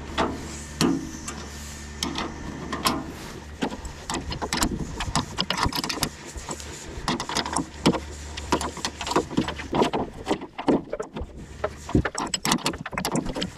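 Bolts being undone on farm machinery: repeated metal clinks and knocks of tools working, over a low steady hum that drops away about nine seconds in.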